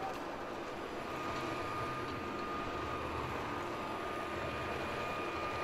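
Steady exhibition-hall ambience: an even rush of background noise with a faint constant high tone running through it.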